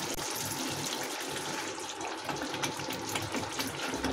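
Spinach and potato curry (aloo palak) simmering in an uncovered kadhai: a steady fizzing bubble with fine crackling pops, and a ladle stirring into it near the end.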